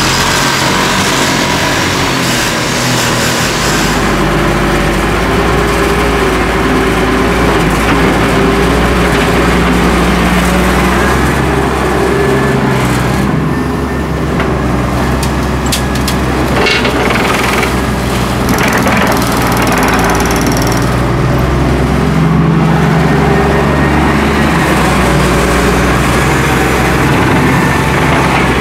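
A motor tricycle's engine runs for the first few seconds. Then the diesel engine of a Doosan Solar 130W-V wheeled excavator runs steadily as it digs sand, with a few short knocks and scrapes from the bucket about halfway through.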